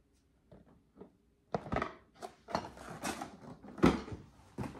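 Product packaging being handled: quiet at first, then from about a second and a half in a run of knocks and rustling as boxes and packs are moved, with the loudest knock near the end.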